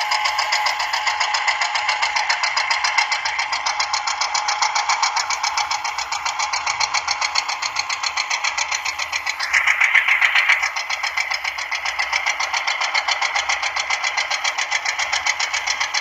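The small electric motor drive of a homemade toy tractor running under load, a steady buzz with a fast, even pulse, louder and higher for about a second around ten seconds in.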